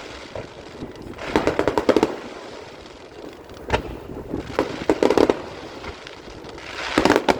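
Fireworks going off in rapid crackling volleys: three clusters of quick pops, with a single sharp bang between the first two.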